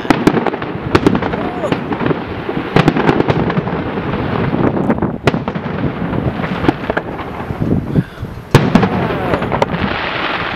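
Fireworks display, with many sharp bangs and crackles following one another quickly.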